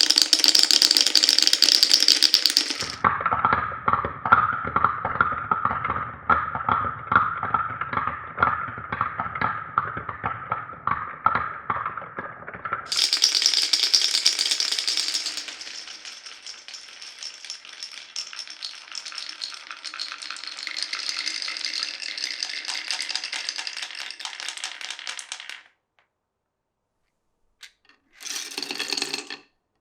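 Glass marbles rolling and clattering through a wooden marble run with clear plastic pipes. A long stretch of evenly repeated clicks begins about three seconds in, as the marbles run over bumpy track. A smoother rolling sound follows, stops short, and a brief clatter comes near the end.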